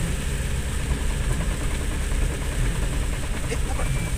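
Steady low rumble of a car driving on a wet road, its engine and tyre noise heard from inside the cabin.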